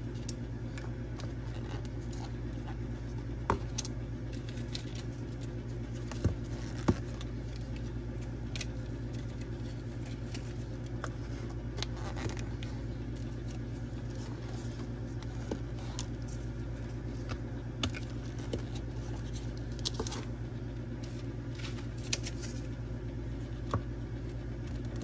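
Scattered light clicks and taps of plastic dessert cups and lids being handled, over a steady low hum.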